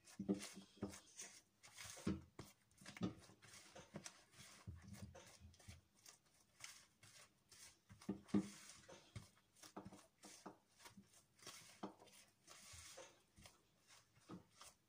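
Silicone spatula stirring flour into creamed butter and sugar in a plastic mixing bowl: faint, irregular scrapes and soft knocks of the spatula against the bowl, a few strokes a second.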